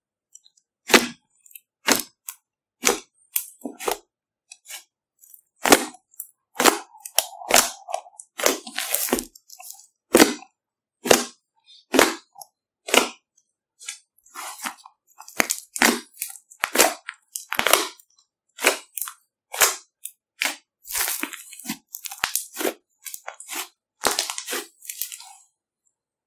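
Fingers poking and pressing into a large fluffy slime, each press giving a sharp pop or crackle of bursting air pockets. About one pop a second at first, then faster and in clusters, stopping shortly before the end.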